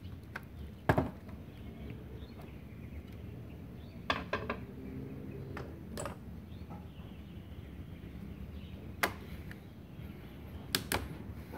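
A screwdriver clicking and tapping against the metal terminal screws and plastic housing of a 3-phase magnetic contactor as it is unscrewed, with tools handled on a wooden bench: a handful of separate sharp clicks over a steady low background hum.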